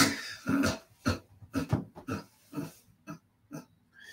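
A man laughing hard in short breathy bursts, about two a second, ending in a longer drawn-in breath near the end.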